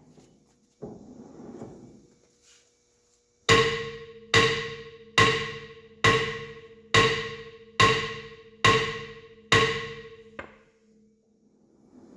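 Eight hammer blows, a little under a second apart, struck on a three-jaw gear puller clamped to a tractor's rear wheel hub. Each blow rings on with a bell-like metallic tone that dies away before the next. The blows are meant to shock loose an axle shaft that is seized in its hub.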